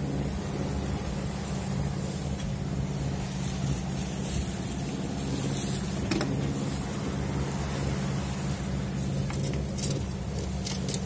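Sailing yacht's inboard engine running at a steady low hum under motor, with water rushing along the hull. A few short knocks from gear on deck, one about six seconds in.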